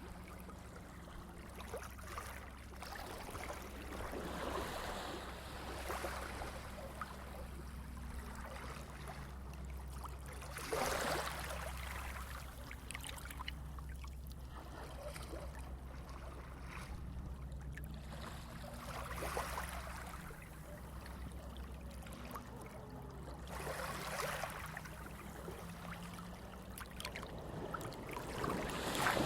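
Running water, flowing and splashing, with swells every few seconds, the largest about a third of the way in, over a steady low rumble.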